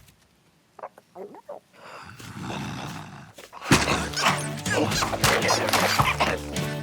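A brief hush with a few short sliding cartoon sounds and a soft hiss, then lively background music with sharp percussive hits starting about three and a half seconds in.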